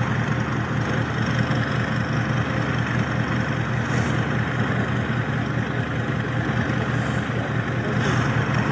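Large wheeled farm tractor's diesel engine running steadily.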